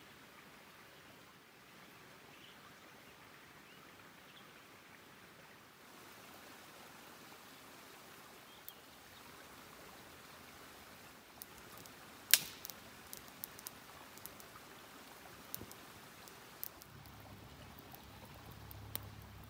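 Small wood campfire crackling, with scattered sharp pops and one loud pop over the second half. Before the fire sounds start there is a faint steady hiss.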